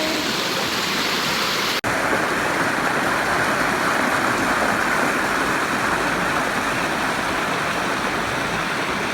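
Steady rush of flowing river water, broken for an instant about two seconds in.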